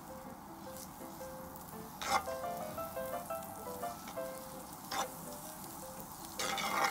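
Crepe batter sizzling in a hot pan in three short bursts, the last and longest near the end, over soft instrumental background music.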